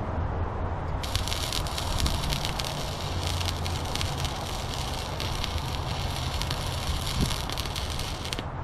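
Wire-feed welder arc crackling steadily as a weld bead is run, starting about a second in and cutting off near the end, over a steady low electrical hum.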